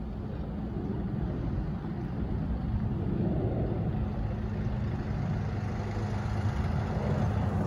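Steady low engine rumble that slowly grows louder.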